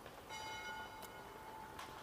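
A single bell-like chime struck once, ringing and fading away over about a second and a half. Two sharp clicks come during its fade.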